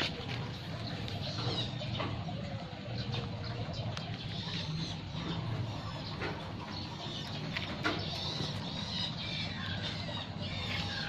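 Birds chirping and twittering in repeated short calls, over a steady low background hum, with a few faint clicks.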